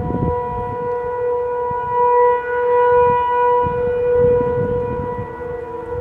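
Federal Signal Model 500 electro-mechanical outdoor warning siren sounding a steady wail for a scheduled tornado-siren test. The pitch holds level while the sound swells louder about two seconds in and eases off again near the end.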